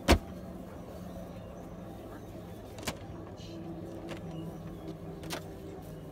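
Helicopter cabin door being handled and opened: a sharp knock at the start, then two lighter clicks about three and five seconds in, over a steady low hum.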